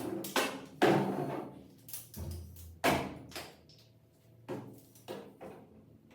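A run of irregular knocks and clatters, about eight in all, with a duller low thump a little past two seconds in.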